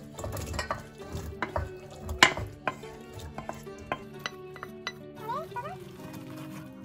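A wooden spatula scraping and knocking against a metal frying pan as diced chicken and vegetable filling is tipped into a stainless steel bowl, then a wire whisk stirring the filling into the egg mixture. The knocks come thickest in the first three seconds, the loudest about two seconds in.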